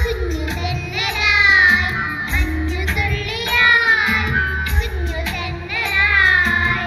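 A group of children singing a song together into microphones over an instrumental backing with a steady bass line, amplified through the stage loudspeakers.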